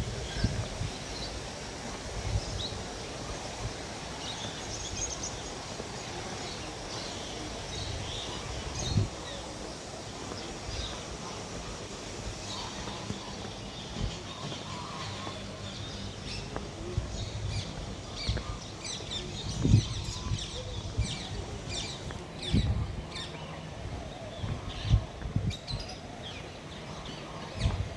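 Many small birds chirping repeatedly in short high notes over steady outdoor background noise, with a few brief low thumps.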